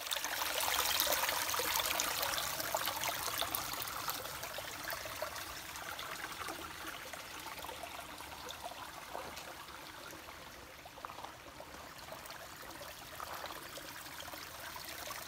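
Small brook running over mossy rocks, a steady wash of water that is loudest in the first few seconds and slowly grows quieter.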